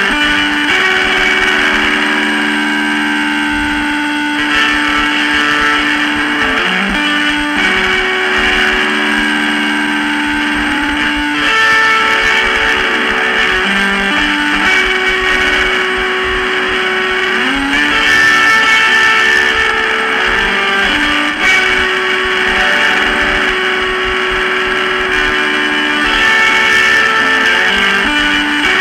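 Lo-fi, noisy guitar music with no vocals: held chords that change every few seconds, sliding in pitch from one to the next, over a harsh hissy wash.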